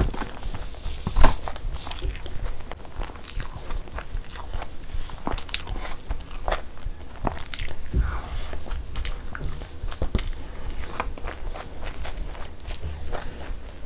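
Close-miked mouth sounds of eating puri with egg masala: wet chewing and smacking with many small irregular clicks. One loud sharp click comes a little over a second in.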